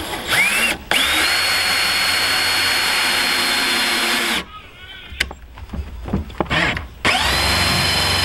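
Cordless drill boring a hole in a plastic barrel: after a short blip the motor whines up to speed and runs steadily for about three seconds, stops, then spins up again near the end and keeps running.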